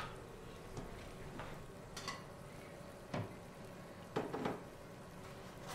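Faint kitchen work at a counter: about half a dozen light knocks and clicks of utensils or dishes, spaced out, over a low steady hum.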